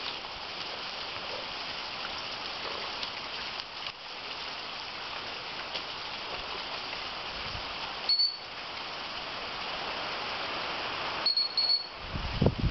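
Short, high, steady pips of a gun-dog training whistle, one about eight seconds in and a quick double pip a few seconds later, over a steady rushing background noise.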